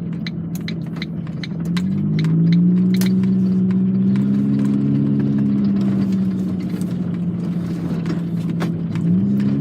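Mk1 Ford Focus engine, fitted with an aftermarket intake and exhaust, heard from inside the car while driving. About two seconds in the engine note climbs and then holds steady. Near the end it dips and rises again. Light clicking rattles come from the cabin throughout.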